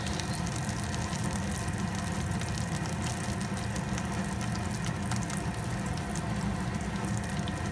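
Hot oil sizzling and crackling steadily around breaded hash brown patties shallow-frying in an aluminium pan, over a steady low rushing hum.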